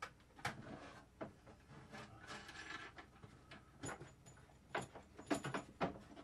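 Handling noise of radio gear and coax cable being shifted on a wooden shelf: scattered sharp knocks and clicks with some rubbing, the busiest and loudest knocks near the end.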